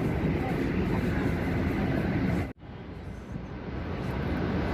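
Steady outdoor rushing noise, strongest in the low end, with a sudden cut about two and a half seconds in, after which it comes back quieter and gradually builds up again.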